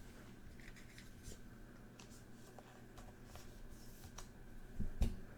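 Trading cards being handled and slid past one another, faint scattered clicks and rustles, with a louder low knock near the end.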